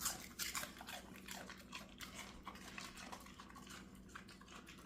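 A dog chewing celery, a quick irregular run of wet crunches and clicks.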